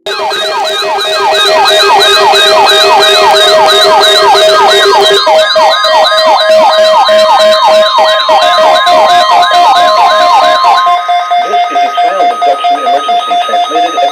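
A NOAA weather radio's electronic alert alarm going off very loud: fast repeating siren-like pitch sweeps, about two and a half a second, over steady tones. About eleven seconds in, the sweeps stop and it changes to fast pulsing beeps, signalling an incoming emergency alert.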